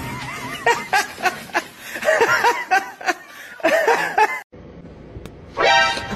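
A person laughing in quick repeated bursts, cut off abruptly about four and a half seconds in; near the end comes one short pitched sound.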